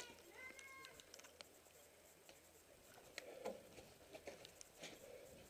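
Near silence, with faint scattered clicks and a soft shuffle of movement about three and a half seconds in. A brief, faint pitched call sounds in the first second.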